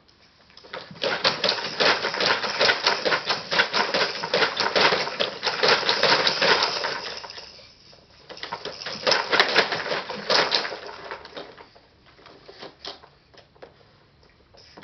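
Plastic toys and frame of a baby's activity saucer rattling and clattering rapidly as the baby bounces in it, in two long spells, the second shorter and dying away into a few scattered clicks.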